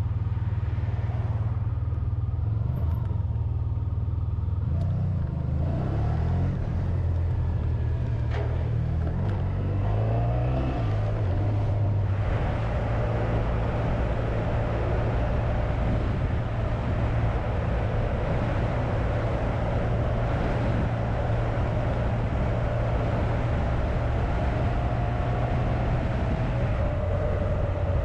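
Honda VFR1200X Crosstourer's V4 engine heard from the bike's windshield, its pitch rising and dropping in steps for several seconds as it pulls through the gears, then settling to a steady cruise. From about twelve seconds in, a steady rush of wind and road noise grows beneath the engine.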